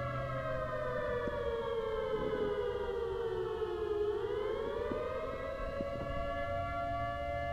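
Civil defense siren sounding with a chord-like tone. It slides down in pitch over about four seconds, climbs back up over the next two, then holds steady.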